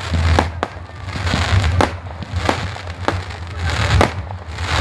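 Fireworks display: sharp aerial bangs about a second apart, with a patch of crackling from bursting shells between them, over a steady low rumble.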